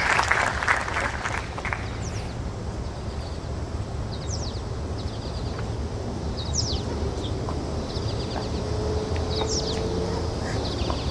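Audience applause dying away over the first two seconds, then a bird calling repeatedly with short, high chirps and trills about every two to three seconds over a low steady outdoor rumble.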